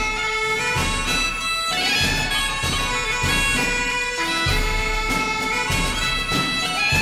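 Bagpipe music: a melody over a held drone, with a steady drum beat.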